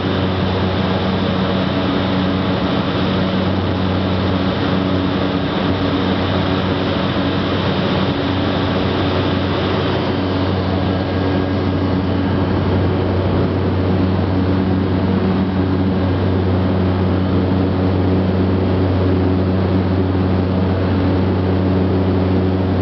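Propeller airplane's engine and propeller at takeoff power, heard inside the cabin: a loud, steady drone with a low hum and several steady tones under a hiss. The higher hiss eases a little about ten seconds in, as the plane leaves the runway and climbs out.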